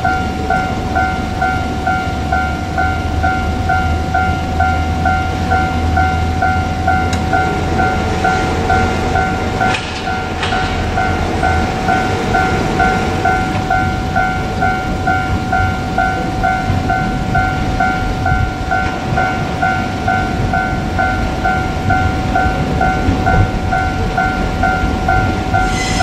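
Japanese railway level-crossing warning bell ringing steadily, a two-tone electronic ding repeating about twice a second, while the barriers are down for an approaching train. A low rumble sits under it for the first half.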